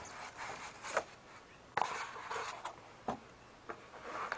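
Cardboard box and foam packing rustling and scraping as a new ATV battery is unpacked by hand: a series of rustles and scrapes, loudest about two seconds in.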